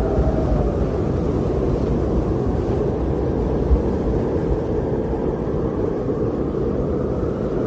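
Wind blowing steadily, a deep rumbling rush with a faint moaning tone that sinks a little in pitch at the start.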